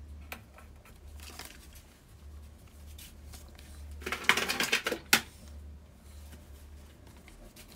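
Labels being handled and stuck onto a consumer unit cover: light taps and clicks, then about four seconds in a second-long rustle, like a sticker peeled from its backing, that ends in a sharp click. A low steady hum runs underneath.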